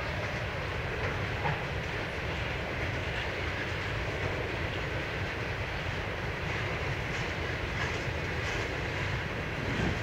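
Freight train of tank cars rolling past: the steady noise of steel wheels running on rail, with some clatter over the rail joints.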